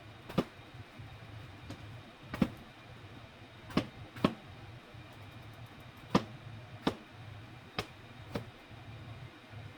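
Kitchen utensils knocking: about eight sharp, separate knocks at uneven intervals, roughly one a second, over a low steady hum.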